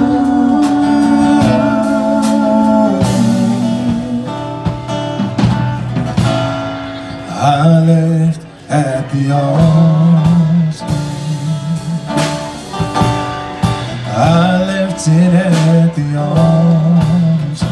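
Live band playing a gospel song with a country and blues feel, guitar to the fore and some singing over it.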